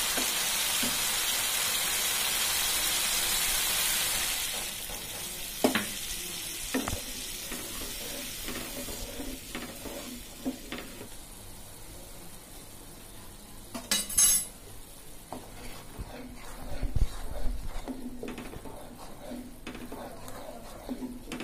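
Spice paste (masala) frying in oil in a nonstick pan, stirred and scraped with a wooden spatula. It sizzles loudly for the first four seconds or so, then the sizzle falls away to a quieter frying, with scattered knocks of the spatula and a short louder rasp about fourteen seconds in.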